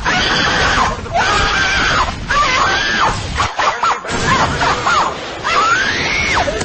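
A child screaming in a string of high-pitched shrieks that rise and fall in pitch, the longest one near the end, over a loud, noisy background.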